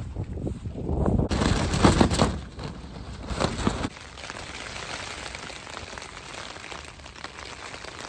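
Gusty wind on the microphone with rustling for the first few seconds. After an abrupt change about four seconds in, a steady patter of rain.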